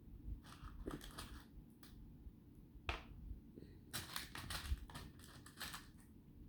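Small beads and bead chips clicking and rattling as they are picked up and set down: a few clusters of light clicks with a single sharper click between them.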